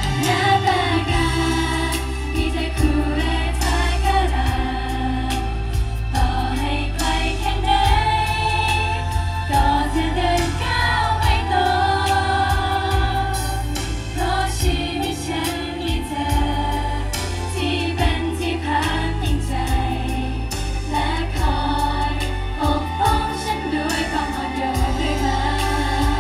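Girl group singing a pop song together over a backing track with a heavy bass line, through a concert stage PA system.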